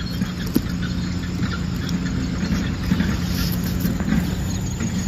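A steady engine hum with a low rumble beneath it, and a sharp click about half a second in.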